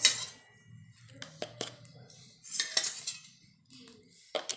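A metal spoon clinking and knocking against a stainless steel bowl as sour curd is spooned onto grated coconut: a few sharp taps scattered through, with quiet scraping between.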